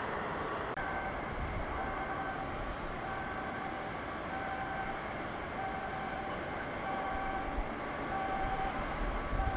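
A two-pitched electronic warning beep repeating about once a second, over a steady din of outdoor machinery or traffic.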